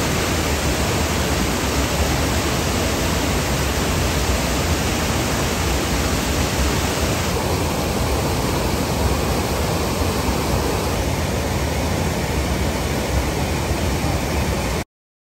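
Whitewater rapids and small cascades on a rocky river rushing steadily. The sound turns slightly duller about halfway through and stops suddenly just before the end.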